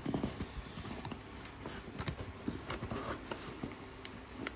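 Corrugated cardboard box being opened and handled by hand: irregular light taps, scrapes and rustles as the flaps are lifted and folded back, with a sharper knock near the end.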